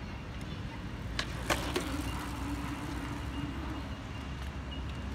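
Outdoor skatepark ambience: a steady low rumble, with a few sharp clicks a little over a second in and a faint steady hum for a couple of seconds in the middle.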